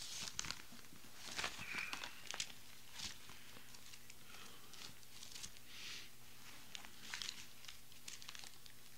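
Thin Bible pages rustling and crinkling in short, irregular bursts as they are leafed through to find a passage.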